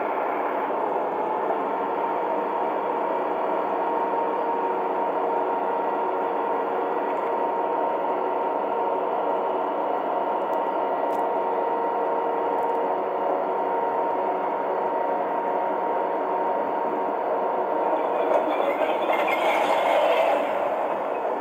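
Volvo FE kerbsider recycling lorry's hydraulic bin lift running with the engine, a steady mechanical whine as it raises two wheelie bins up the side of the body. About 18 seconds in it turns louder and rougher, a rattling scrape as the bins tip over the top.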